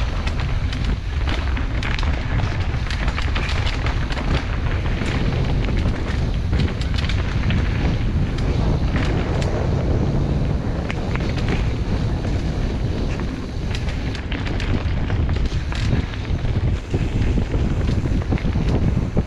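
Wind buffeting the microphone of a helmet-mounted GoPro Hero 8 as a Specialized Enduro Expert mountain bike descends a rocky dirt trail at speed. Low rumbling tyre noise on the dirt, with frequent sharp clicks and knocks from the bike rattling over rocks and roots.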